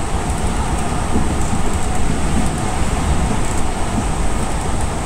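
Enshū Railway 2000-series electric train running along the line, heard from the driver's cab: a steady rumble of wheels on the rails.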